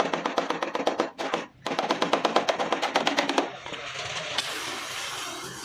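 Rapid hammering on sheet metal, about ten sharp blows a second, as a car door panel is worked. The blows pause briefly about a second in, then stop about three and a half seconds in, leaving a steady hiss.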